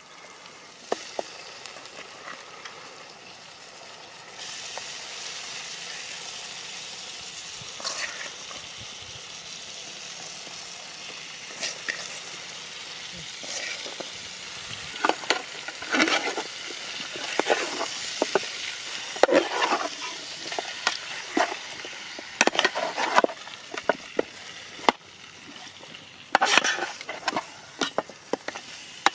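Chicken frying and sizzling in a pan while it is stirred, a utensil scraping and knocking against the pan. The sizzle grows louder about four seconds in, and the stirring strokes come thick and fast in the second half.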